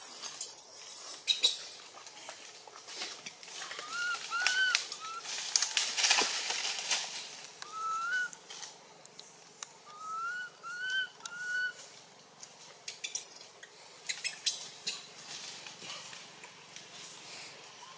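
Birds chirping: short rising chirps in twos and threes, with thin, very high whistles near the start and again about 13 seconds in. Scattered clicks and rustles run through it.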